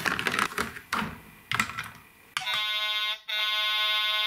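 Plastic clicks and rattles as a toy truck runs down a plastic playset slide. About two seconds in, the Paw Patrol Rocky Clean Cruiser sound vehicle starts its electronic sound effect through its small speaker: a steady buzzing tone at one pitch, broken once by a short gap.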